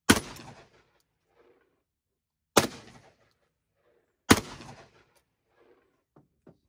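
Three shots from a Rock Island Armory VR80 12-gauge semi-automatic shotgun, the first right at the start, the next about two and a half seconds later and the last under two seconds after that, each trailing off over about half a second.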